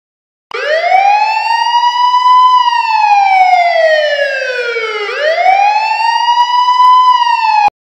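Siren wailing: the pitch rises over about two seconds, holds, falls slowly, then rises and holds again before cutting off abruptly.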